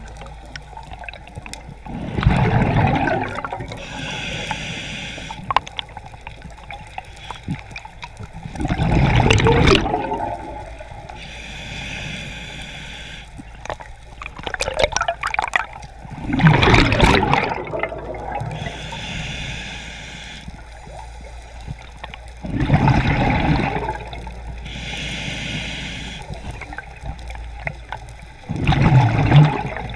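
Scuba diver breathing through a regulator underwater: a quieter hissing inhale between loud rushes of exhaled bubbles, about five exhalations, one every six to seven seconds.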